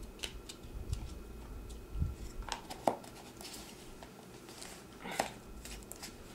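Scattered sharp clicks and taps of a plastic powder tub being handled, its lid pressed back on, with a few soft rustles in between.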